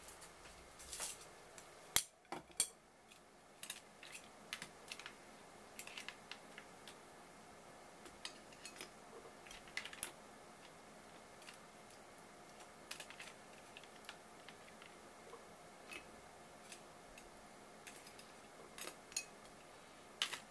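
Metal chopsticks clicking and tapping against a ceramic dish and a plastic container as pieces of marinated swimming crab are lifted out and set down. Scattered light clicks at an uneven pace, the sharpest about two seconds in.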